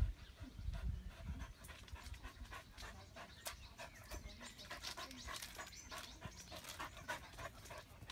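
A dog panting quickly and rhythmically, about three to four breaths a second, with a few low rumbles in the first second or so.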